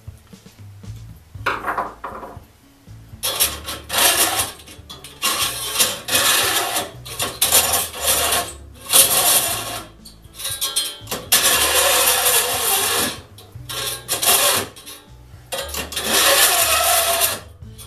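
A file run lengthwise along the tops of a buck saw blade's teeth in a series of scraping strokes, each lasting up to a couple of seconds. This is jointing, which files every tooth down to the same height.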